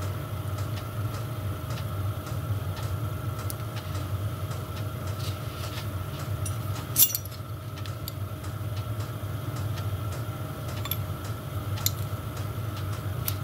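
Steady hum of a diesel space heater running, with faint regular clicking from it. Over it come two sharp clinks of small spanners and metal pump parts being handled on the bench, the louder one about seven seconds in and the other near the end.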